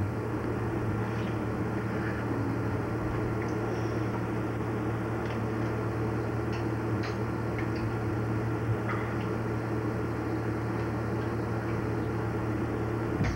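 Steady low hum and hiss of an old home-video soundtrack, with a few faint small clicks scattered through it.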